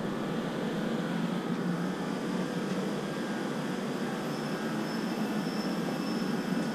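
Steady background drone with no distinct events, and a faint high whine that comes in about four seconds in.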